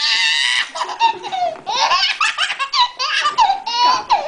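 A baby laughing hard: a long high squeal that breaks off about a second in, then short bursts of belly laughter one after another.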